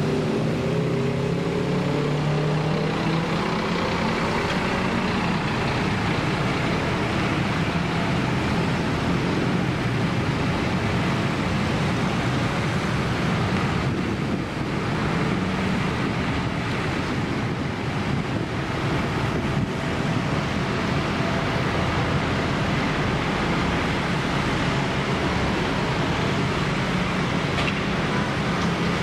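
Scania K360 diesel bus running on the move, its engine note falling over the first few seconds, then a steady rumble of engine, road and wind noise.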